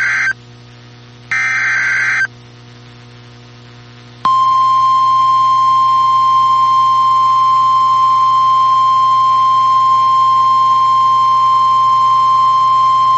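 Emergency Alert System SAME header data tones from a NOAA Weather Radio broadcast: a harsh electronic burst about a second long, one ending just as the sound begins and another a second in, with faint radio hiss between them. About four seconds in, the steady single-pitch 1050 Hz weather radio warning alarm tone starts and holds.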